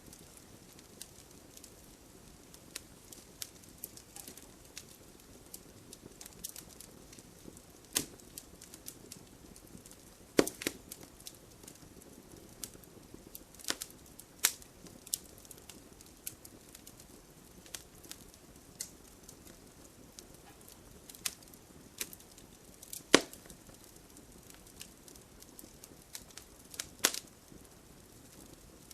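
Wood fire crackling in a fireplace: irregular sharp pops and snaps over a faint low hiss, with a few much louder snaps scattered through.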